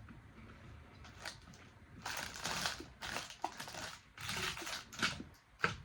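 Irregular rustling and crinkling of candy packaging being handled, in several bursts, the longest about two seconds in.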